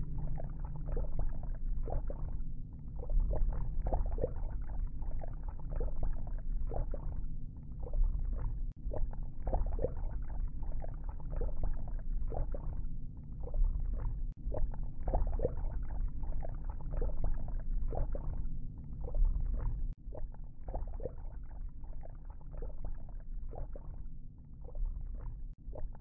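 A deep-sea ROV's own recorded sound: a steady low rumble with irregular crackles and clicks, a couple of times a second.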